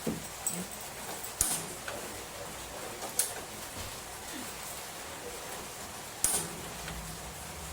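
Four scattered sharp knocks over a steady background hiss, the loudest one near the end.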